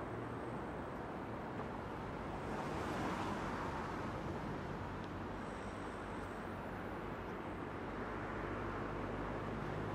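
A distant freight train of loaded car-carrier wagons rolling through the station, a steady low rumble of wheels on rails that swells slightly about three seconds in.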